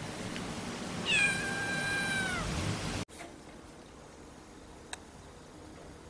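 A cat meows once: a single long call starting about a second in, holding its pitch and then dropping at the end. A steady background hiss cuts off suddenly about three seconds in.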